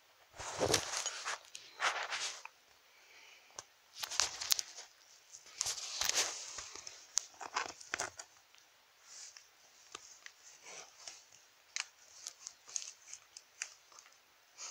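Handling noise: irregular rustling and crinkling bursts with small plastic clicks as toy figures and a doll in cloth clothes are pushed about by hand. The bursts are loudest in the first half, and lighter scattered ticks follow.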